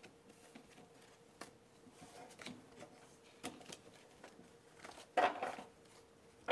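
Faint rustling and light clicks of cards and papers being gathered up on a wooden tabletop, with a louder brief rustle about five seconds in, over a faint steady hum.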